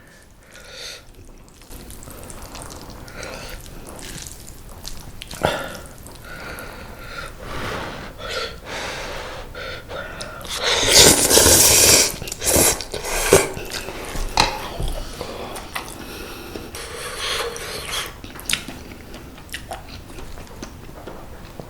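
Close-miked eating of spicy mala ramen noodles: wet slurping and chewing with many short clicks and smacks, and a louder noisy stretch of about a second and a half around the middle.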